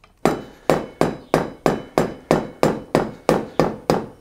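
A hammer tapping the front wheel axle of a BMW K1100LT motorcycle through the wheel hub into the far fork leg. It lands about a dozen even, sharp blows at roughly three a second, each with a short ring.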